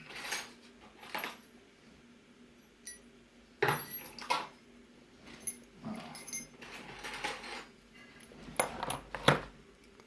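Small metal lock parts clinking and knocking as they are picked up and handled: about ten separate clicks and clinks, the loudest near the end.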